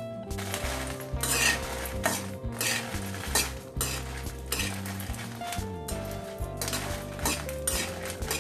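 A metal spatula scraping and stirring dried red chillies around an aluminium kadai, in irregular strokes against the pan, with the oil sizzling as the chillies roast.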